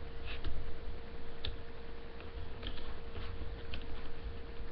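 Plastic hook tool and rubber bands clicking against the pegs of a plastic Crazy Loom while bands are hooked and pulled over, a few light irregular ticks, over a faint steady hum.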